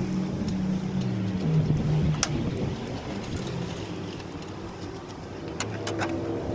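Tow truck's engine running steadily while its hydraulic wheel-lift controls are worked. The engine's tone shifts in pitch a few times, and a few sharp metallic clicks sound over it.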